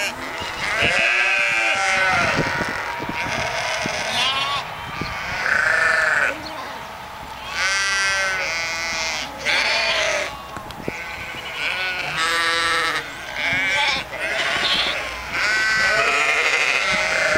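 A flock of ewes and lambs bleating, many calls overlapping one after another: high, wavering lamb bleats mixed with deeper ewe calls.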